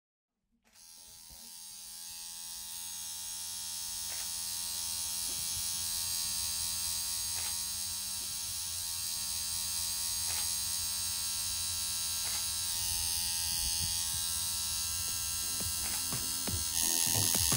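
Electric tattoo machine buzzing steadily. It fades in about a second in and grows louder, with faint ticks every second or two, and gets a little louder near the end.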